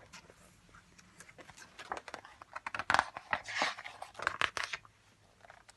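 Paper pages of a picture book being handled and turned: a run of quick, irregular crackles and rustles from about two seconds in, dying away near the end.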